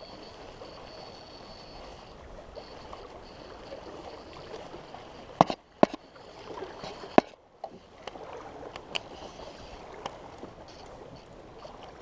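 Wind-driven water lapping and sloshing close by, with several sharp knocks from the rod and reel being handled while a fish is played; the loudest knocks come about halfway through.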